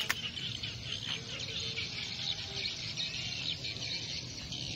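A flock of swiftlets twittering over a rice field: a dense, continuous chatter of short, high chirps, with a single sharp click right at the start.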